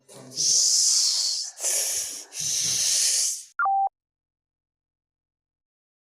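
Three stretches of loud hissing noise run together over about three and a half seconds, followed by a single short electronic beep, then dead silence.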